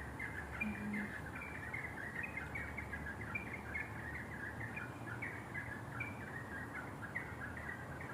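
Many birds chirping together in a dense, continuous chorus of short high chirps over a low, steady background of outdoor noise.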